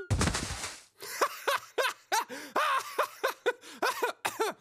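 A short burst of noise with a low thump, then a cartoon voice snickering in quick, short, high bursts.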